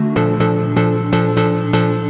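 Radikal Technologies Delta CEP A digital synthesizer in paraphonic mode with reverb, playing a chord re-struck in a steady pulse of about five notes a second. The chord changes just after the start and again at the end.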